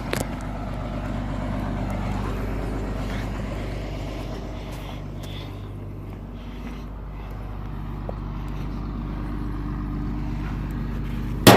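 Heavy farm machine's engine running steadily, its loudness swelling and easing slightly, with a sharp loud knock at the very end.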